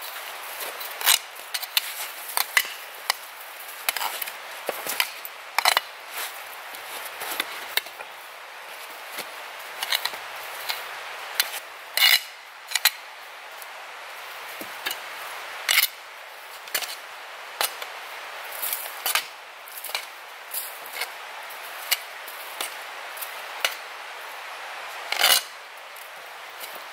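Irregular sharp clicks and knocks of hard objects, a few much louder than the rest, over a steady hiss.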